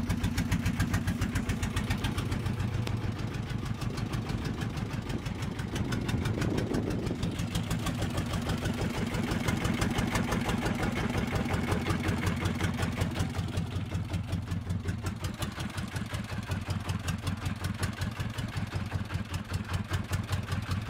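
A fishing boat's engine running steadily under way, a low drone with a rapid, even beat.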